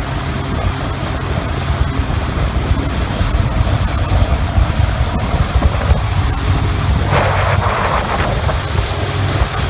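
Boat running under way: a steady low engine rumble, water rushing in the wake and wind buffeting the microphone, with a brief louder rush of water about seven seconds in.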